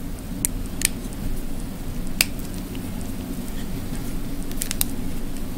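Scattered light metallic clicks and taps as a solenoid valve's end cap is worked loose with hand tools, about five in all with two close together near the end, over a steady low hum.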